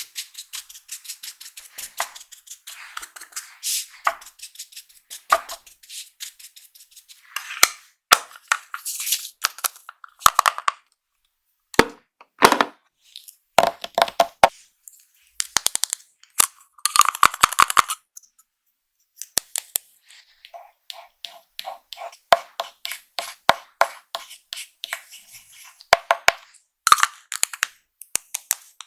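Plastic makeup packaging and cases handled close to the microphone: an irregular run of sharp clicks and snaps, with short bursts of crinkling.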